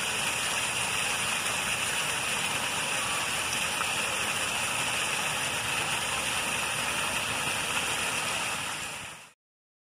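Fountain jets splashing steadily into a shallow pool, a constant hiss of falling water that fades out near the end.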